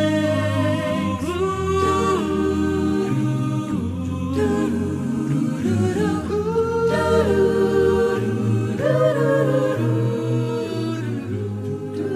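Slow, hymn-like vocal music: a sung melody held over sustained low chords, with no clear words.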